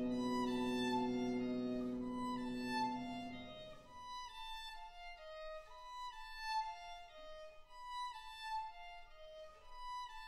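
Contemporary chamber music for horn trio (horn, violin and piano). A held low note sounds under a moving high line for the first few seconds. Then the low note stops and the high line goes on alone, quieter, in short separate notes.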